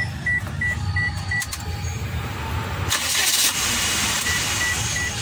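Daihatsu Hijet 850 van's engine running with a steady low rumble, under a regular electronic beep about two and a half times a second that stops about a second and a half in and comes back near the end. A hiss sets in about three seconds in.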